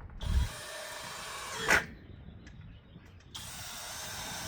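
Power drill driving pocket-hole screws into wood: two short runs of the motor, each ending in a sharp loud click as the screw seats.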